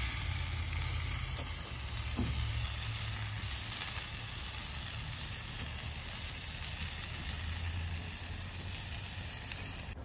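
Meat sizzling as it grills over an open fire, a steady hiss.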